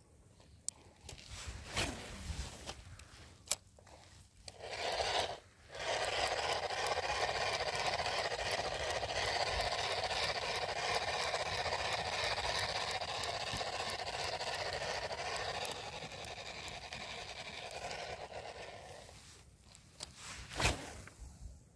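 Fishing reel being wound in, a steady rasping whirr with fast regular ticking that lasts about thirteen seconds and then fades out, preceded by a few scattered clicks and followed by one sharp click near the end.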